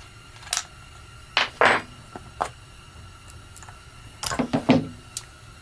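Metal clinks and scrapes as the chainsaw's bar and chain are taken off, in a few short clusters with the busiest bunch about four seconds in.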